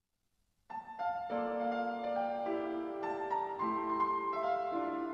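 Piano introduction of a choral anthem, starting a little under a second in: a rhythmic melody of quick notes over sustained lower notes.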